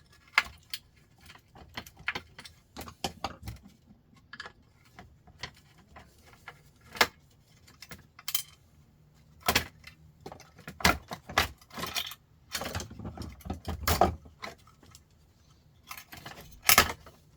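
Irregular metallic clicks, clinks and small knocks of a screwdriver and loose small metal parts (screws, brass connectors) being handled while a sandwich maker is taken apart, with busier clusters of clatter around the middle and near the end.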